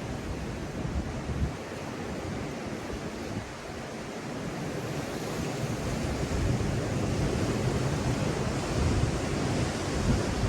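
Ocean surf washing with wind buffeting the microphone, swelling louder about halfway through.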